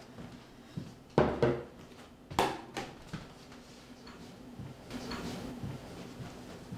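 A ceramic mug set down on a wooden table with a sharp knock about a second in, followed by a couple more knocks and small clinks of kitchen handling, over a faint steady room hum.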